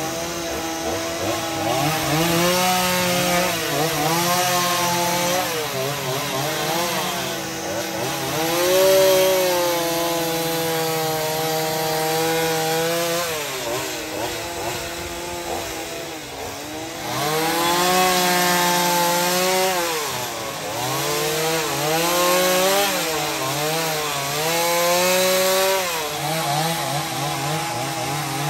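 Gas chainsaw with a narrow carving bar cutting into a wooden carving, its engine pitch dropping and climbing back again several times as the throttle is eased and opened.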